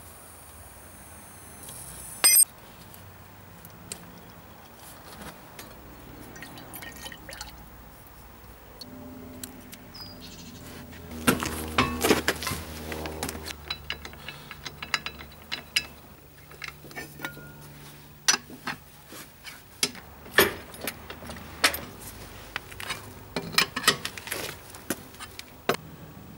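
Hand work on a car's brake and wheel: a long run of sharp metallic clicks and clinks from wrenches, bolts and the vacuum pump, more of them and louder in the second half.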